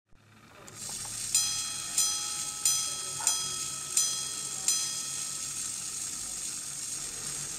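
Quarter-repeating verge pocket watch striking the time on its bells: six evenly spaced, ringing chimes about two-thirds of a second apart, over a steady high hiss.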